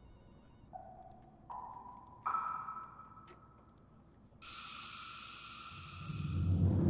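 Cartoon soundtrack tones: three short blips stepping up in pitch, about one every second. About four and a half seconds in comes a brighter held tone with a hiss over it, and near the end a low rumble swells up.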